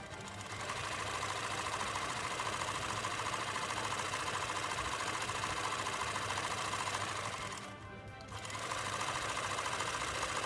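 Brother Select F ZZ3-B556 household sewing machine running at steady speed with its bobbin case removed, a sound check before strip-down cleaning. It runs for about seven seconds, stops briefly, then runs again.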